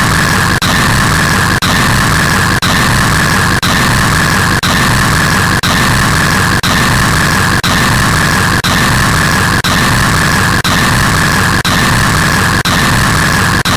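Very loud harsh static, a steady hiss across all pitches with a stronger band in the upper middle, broken by a brief dropout about once a second, like a short loop repeating.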